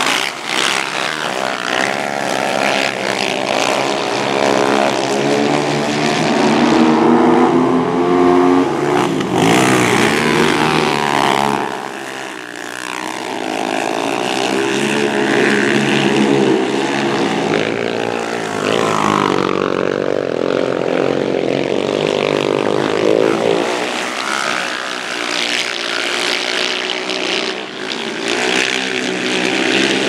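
Several racing quad (ATV) engines running hard together, their pitches rising and falling as riders work the throttle through the turns. The sound eases briefly about twelve seconds in, then builds again.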